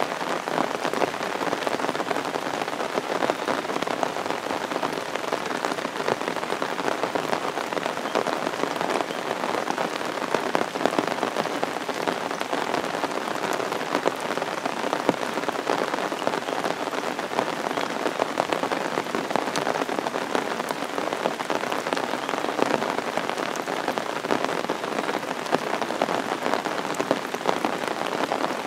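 Torrential rain, about 80 mm an hour, pouring down steadily: a dense patter of drops over an even hiss.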